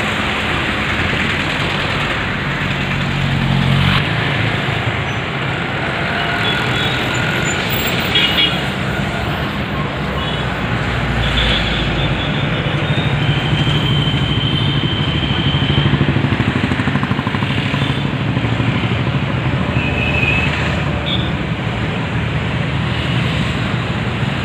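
Steady road traffic noise: engines of passing vehicles, with a few short high-pitched tones over it.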